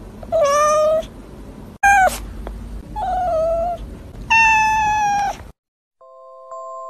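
A cat meowing four times, the second call short and the last the longest.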